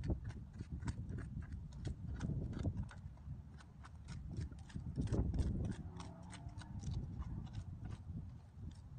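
Irregular sharp clicks and knocks of clam shells and stones being handled while digging for clams, several a second, over a low rumble.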